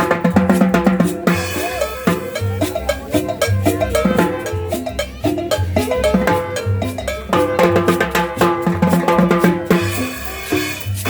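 Upbeat dance music with a steady beat on drum kit, bass drum and cowbell, with melody instruments over it.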